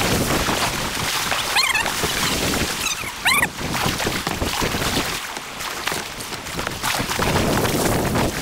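Fast whitewater river current rushing and splashing close around a kayak, with paddle strokes in the water. Two brief squeaky, wavering sounds come about one and a half and three seconds in, the second the loudest moment.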